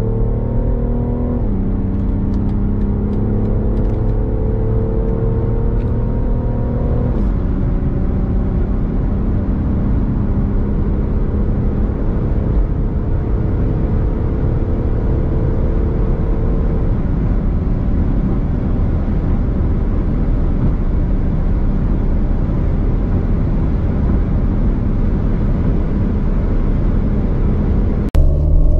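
BMW 340d's 3.0-litre twin-turbo straight-six diesel accelerating hard, heard from inside the cabin. The engine note climbs and drops suddenly at two upshifts, about a second and a half and seven seconds in. It then rises slowly in the next gear until it blends into a steady rush of wind and road noise at high speed.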